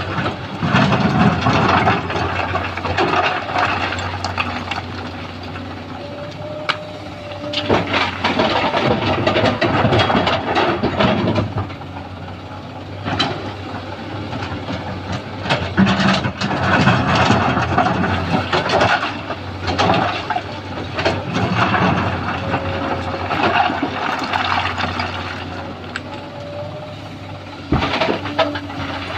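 Sany SY215C hydraulic excavator's diesel engine running steadily under load while it loads mountain rock, with loud stretches of rock clattering and scraping that come back every few seconds as the bucket digs and dumps. A short whine rises now and then over the engine.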